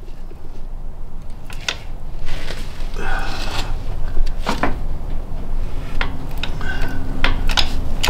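Hand-pumped hydraulic bottle jack in a shop press, pressing a piston pin into a connecting rod: irregular metallic clicks and knocks from the press and its pump handle, with two short squeaks and a low hum underneath.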